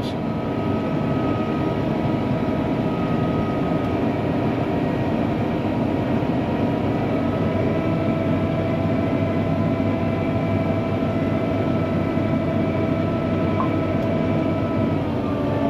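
ULV mosquito fogger running steadily, spraying insecticide fog: a continuous machine drone with a few faint whining tones that change pitch about halfway through.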